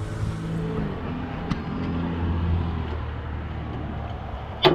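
Steady low machine hum with several pitched tones, shifting slightly about a second in; a faint click midway and a sharp knock just before the end.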